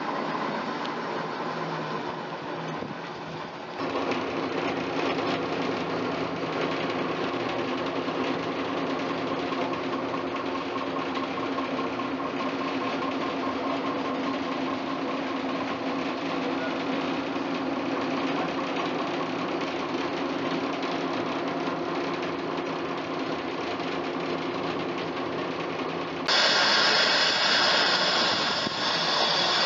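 British Rail Class 03 diesel shunter's Gardner eight-cylinder engine running steadily, heard close up from inside the cab. About 26 seconds in, a loud hiss comes in over it.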